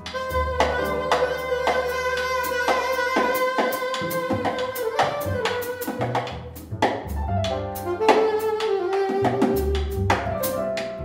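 Free-improvised jazz by a quartet: alto saxophone holding long, slowly shifting notes over double bass, piano and a drum kit with frequent hits.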